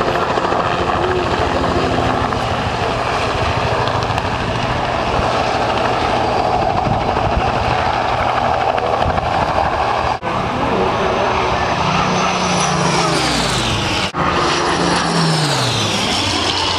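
A helicopter flying low past, its engine and rotor running steadily. In the last few seconds a whine falls steeply in pitch as it passes, with a brief break twice where the sound cuts out.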